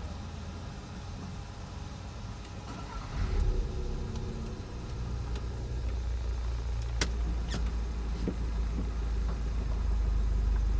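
Volkswagen Golf's engine idling, heard from inside the cabin as a steady low hum that grows a little louder about three seconds in. Two sharp clicks come about seven seconds in.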